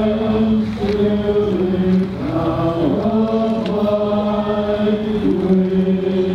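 Great Highland bagpipes of a pipe band playing a slow tune, the chanter stepping between held notes over the steady, unbroken drone.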